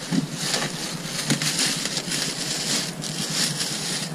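Crinkling and crackling of clear plastic wrap being pulled and handled around a new alloy wheel, an irregular run of rustles without a break.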